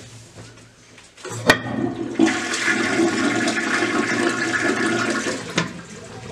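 A toilet flushing. There is a sharp click of the flush lever about a second and a half in, then water rushes loudly out of the tank into the bowl for about four seconds and ends with a knock. The water supply is shut off, so the tank drains without refilling.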